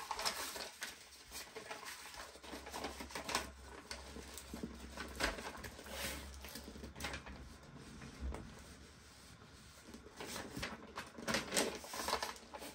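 Paper and plastic rustling and crinkling as a rolled canvas and a paper sheet are handled and rolled up on a wooden table, with irregular soft taps and clicks.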